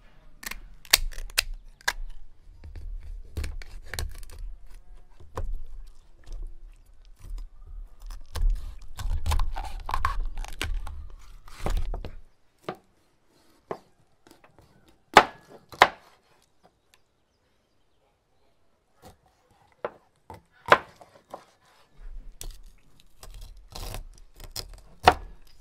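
Kitchen scissors snipping through a raw fish, then a cleaver chopping through the fish onto a wooden cutting board. Sharp separate chops, the loudest about midway and near the end.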